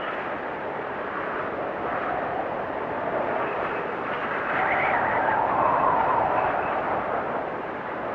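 Blizzard wind blowing in gusts, a steady rushing with a soft whistle that swells about halfway through and eases off near the end.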